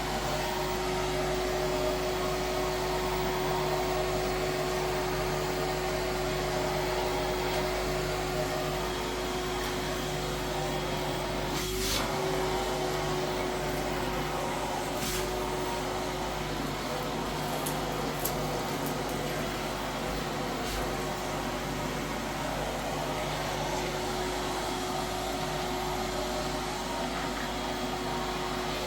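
A steady droning hum, like a running motor or fan, with a constant tone held throughout and a couple of faint clicks partway through.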